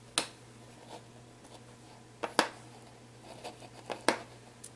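Hands handling a sheet of heat-transfer foil on a cutting mat: a few sharp ticks and faint crinkles, the loudest about two and a half seconds in, as the foil is lifted from the card after the heated foil pen has transferred the design.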